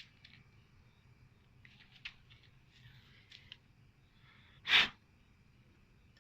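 Faint scattered clicks and scrapes, then one short, loud burst of noise about three-quarters of the way through.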